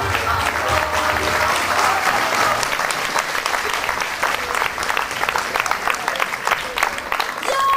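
Audience applauding, a dense steady clatter of many hands clapping, while the music underneath dies away about two seconds in.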